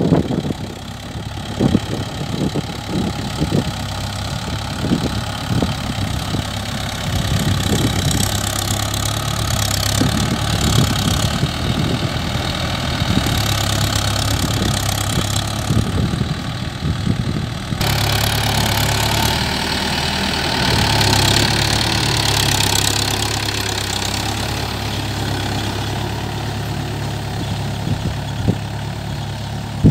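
Mahindra Yuvo 575 DI tractor's four-cylinder diesel engine running steadily under load as it pulls a tine cultivator through the soil. The sound changes abruptly about two-thirds of the way through, gaining more hiss.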